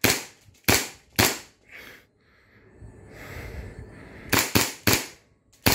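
Shots from a TTI Pit Viper replica, a gas blowback airsoft pistol, fired with a tracer unit on the muzzle: three sharp cracks in about a second, then after a pause of about three seconds four more in quick succession.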